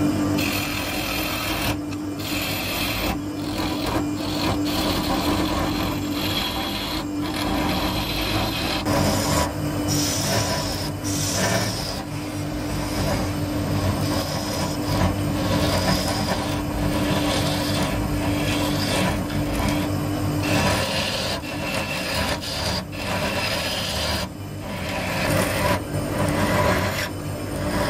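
A wood lathe spinning an apple-wood vase blank while a hand-held turning tool cuts its face and centre opening: a continuous scraping, rasping cut that rises and falls as the tool works, over the lathe's steady hum.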